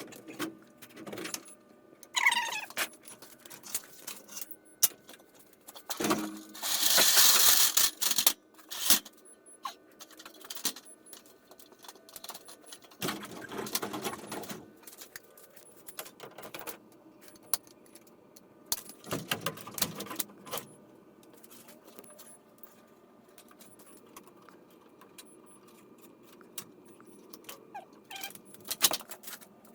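Metal clinks, rattles and scrapes from handling garage door torsion spring hardware, with a louder harsh rasp lasting over a second about seven seconds in.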